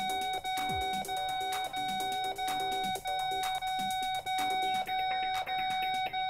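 Nellcor bedside pulse oximeter sounding its low oxygen saturation alarm as the reading falls to the low 80s: a steady high beeping tone in long beeps broken by a short gap about every two-thirds of a second.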